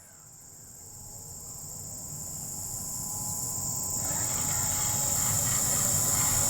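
Insects chirring in a steady, high buzz, while a low rumble grows steadily louder.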